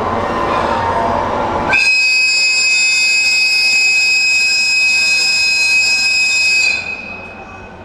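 Electric locomotive rumbling, then, about two seconds in, an EF64's AW-2 air whistle blows one long, high, steady blast lasting about five seconds. The whistle cuts off near the end.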